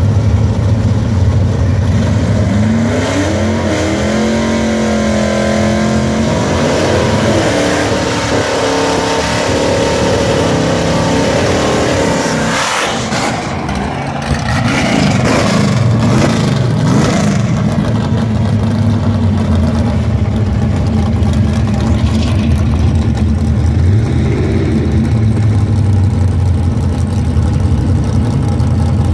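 Fox-body Mustang drag car's 460 big-block V8 idling, with engine revs rising and falling a few seconds in and again around the middle.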